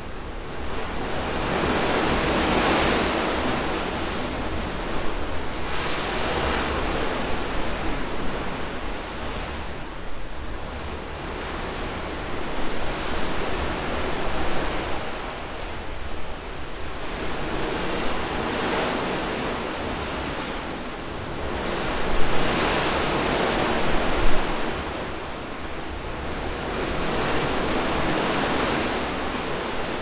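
Ocean waves washing along the side of a cruise ship under way: a steady rushing of seawater that swells and eases every few seconds, over a constant low rumble.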